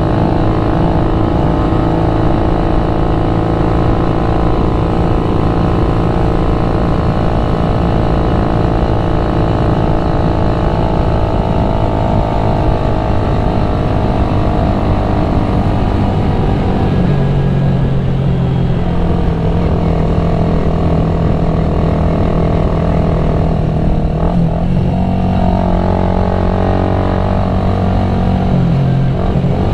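Motorcycle engine running steadily under way. Its note shifts in pitch about halfway through and wavers again near the end, as the engine speed changes.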